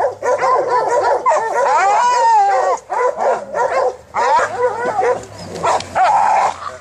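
Several hunting dogs barking and yelping over one another, excited calls in quick, overlapping succession as they bay a wild boar.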